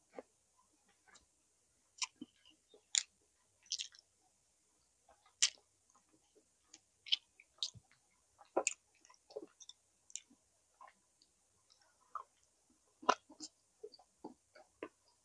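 A person chewing and eating chicken inasal with rice: irregular wet mouth clicks and crackles, spaced unevenly, with a few sharper, louder clicks.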